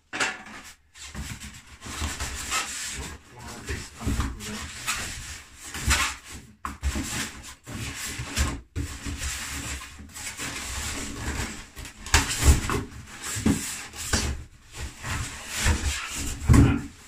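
Table saw packaging and parts being handled in the box: irregular scraping and rubbing, with a few heavy thuds as parts are lifted and set down.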